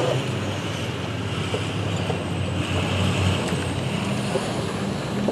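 Steady low rumble of passing vehicles with a constant low hum.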